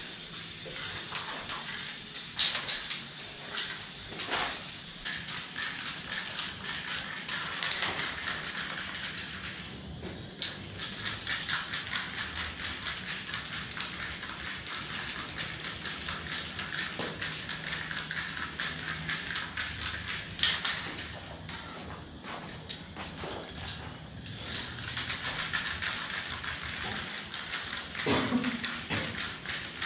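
Aerosol spray paint cans hissing in repeated bursts as they are sprayed onto a wall, with short sharp clicks and rattles in between.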